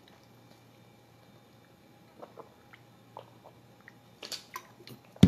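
A person swallowing in gulps while drinking from a tall aluminium can, faint. Clicks follow, then a sharp knock near the end as the can is set down on the table.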